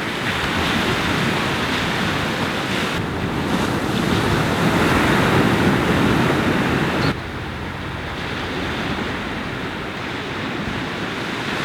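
Ocean surf with wind buffeting the microphone, a steady rush of noise that drops suddenly to a quieter level about seven seconds in.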